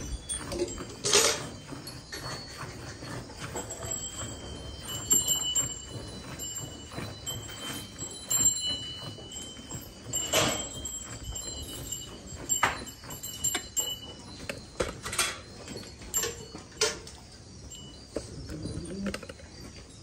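Hand milking a cow into a steel pail: irregular squirts of milk hitting the foamy milk in the pail. A few much louder knocks stand out, about a second in, around ten seconds in and again about fifteen seconds in, with faint ringing tones behind.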